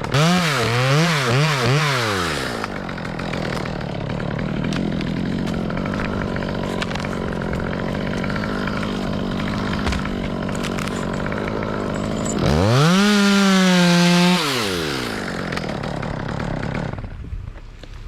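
Two-stroke chainsaw revved in several quick blips, then running steadily under load as if cutting wood, then revved high for about two seconds before dropping back.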